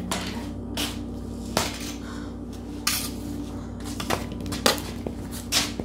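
Hockey stick blade clacking against a concrete floor and a softball, about six sharp hits at uneven intervals. A steady low hum runs underneath.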